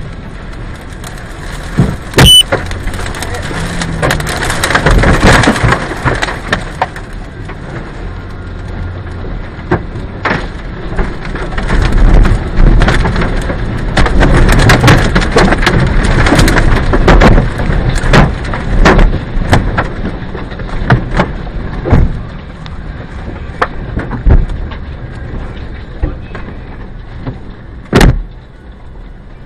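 Violent tornado-driven wind and heavy rain, swelling and easing in gusts and loudest in the middle, with many sharp knocks and cracks of things striking all through.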